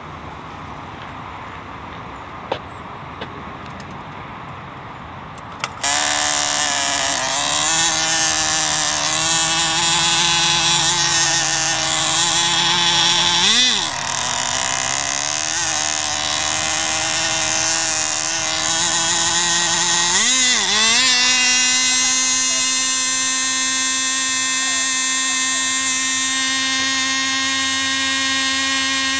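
Tiny 2.5 cc two-stroke engine of an F2A control-line speed model running flat out with a high-pitched, steady whine. It starts suddenly about six seconds in, after a quieter stretch with a few clicks, and its pitch briefly sags and recovers twice before holding steady.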